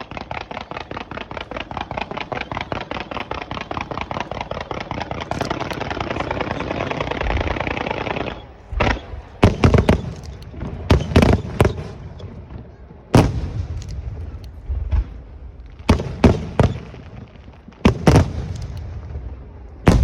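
Aerial fireworks: a rapid string of cracks, many a second, building in loudness for about eight seconds, then a series of separate loud shell bursts, some in quick pairs, each followed by a low rumble.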